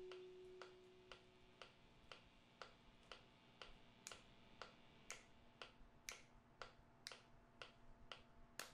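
Faint, even ticking about twice a second, the later ticks a little sharper, while the last held note of an effects-laden guitar dies away in the first second and a half.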